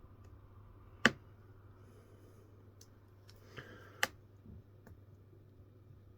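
Two sharp clicks of small items handled on a watch repair bench, about three seconds apart, over a low steady hum, with faint handling rustle between them.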